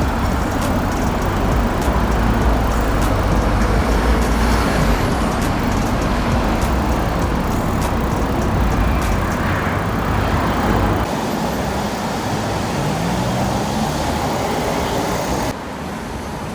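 Road traffic noise with a heavy low rumble. It drops abruptly about eleven seconds in and again near the end.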